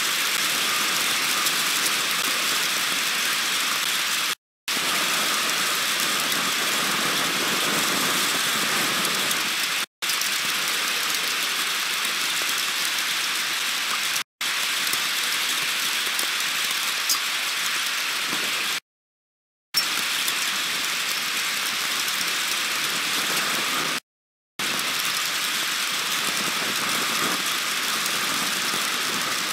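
Heavy downpour during a thunderstorm, a steady hiss of rain with no thunder, broken several times by sudden brief dropouts to silence, the longest nearly a second long a little after the middle.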